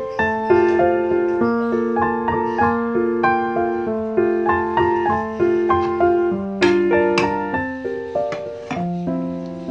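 Background music: piano playing a melody in an even rhythm of single notes.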